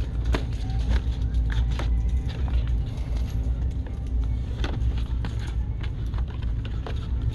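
Steady low rumble of a car on the move, with music playing over it and scattered light clicks and knocks.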